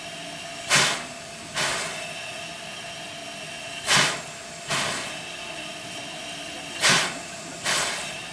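C56-class steam locomotive standing with steam up: a steady hiss of steam, broken by short sharp puffs of exhaust that come in pairs, the two puffs under a second apart, about every three seconds.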